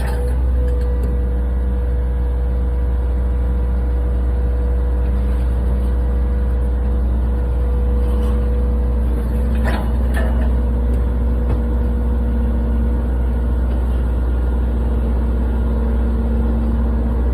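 Mini excavator's engine running steadily under load while it backfills, with a brief clatter about ten seconds in.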